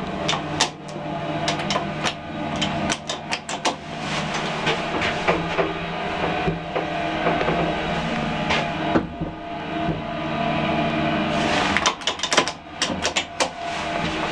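Original 1920s–1930s Express lift's car and machinery in travel: a steady motor hum with a run of sharp clicks and rattles in the first few seconds, a smoother stretch, then another burst of clicking and rattling about twelve seconds in.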